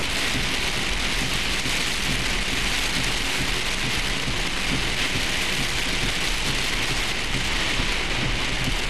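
Heavy rain pelting a car's windshield, heard from inside the car as a steady hiss with a low rumble underneath.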